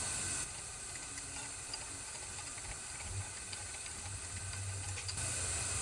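A few faint clicks of a hand wrench backing off the center bolt of a valve spring compressor, letting the new valve spring and retainer rise onto the keepers. Under them runs a steady low hum.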